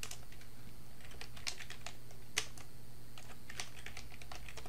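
Typing on a computer keyboard: irregular key clicks, with one sharper keystroke about halfway through. A steady low hum runs underneath.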